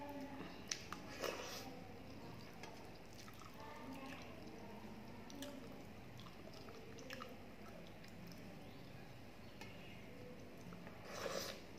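Faint eating sounds: fingers working through watery soaked rice (panta bhat) on a steel plate, and chewing, with small clicks and a couple of brief louder wet squelches, about a second in and near the end.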